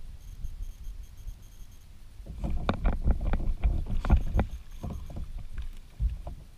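Hooked bass splashing and thrashing at the water's surface as it is fought toward the kayak: a run of irregular splashes from about two seconds in until about five seconds, with a few more near the end.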